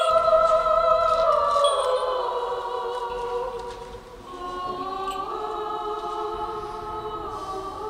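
Choir singing slow, sustained chords, the notes held and moving to a new chord every second or two, with a brief dip in level about four seconds in.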